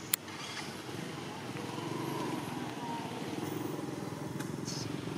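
A motor vehicle engine running steadily, growing louder about a second and a half in, with a sharp click just after the start.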